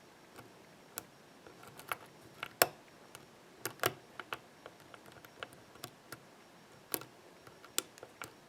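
Irregular small metallic clicks and taps of a hook pick and tension wrench working the spool pins inside a Master Lock ProSeries 6121 padlock. A sharper, louder click comes a little over two and a half seconds in.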